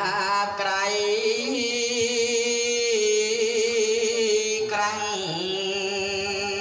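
A Buddhist monk's solo voice chanting in a drawn-out melodic style, holding long notes with a wavering, ornamented pitch. About five seconds in, the pitch dips and a new phrase begins.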